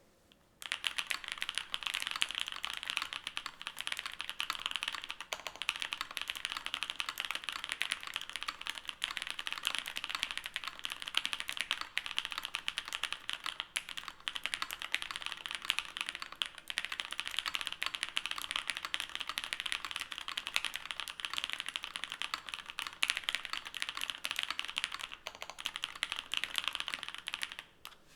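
MatrixLab 6xv Falcon mechanical keyboard with Poseidon switches on a top-mounted aluminium plate, being typed on quickly and continuously: a dense stream of keystroke clacks that starts about half a second in and stops shortly before the end.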